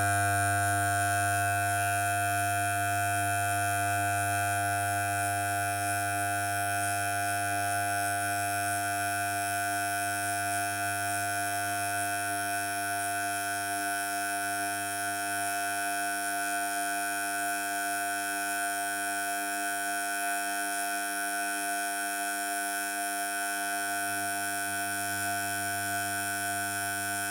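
Electric hair clippers running continuously with a steady, even buzz.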